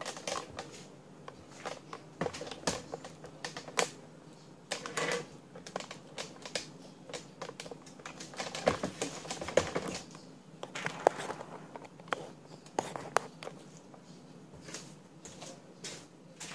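Irregular light clicks and taps, handling noise.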